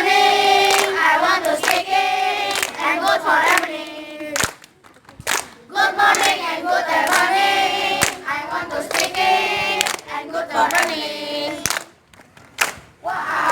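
Children's choir singing a song in unison, in phrases with short breaks, with a few sharp hand claps between the lines.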